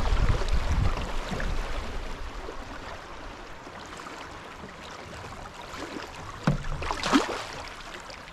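Wind rumbling on the microphone that dies away after about a second, then a soft, even hiss of moving river water, with two sharp knocks or splashes late on, as from a paddle against the water or the boat.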